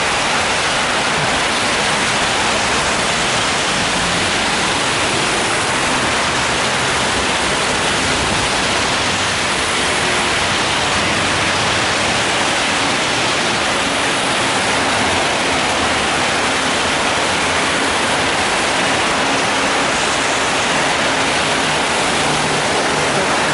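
Heavy rain falling on an umbrella held over the microphone, a steady even hiss, mixed with traffic on the wet road.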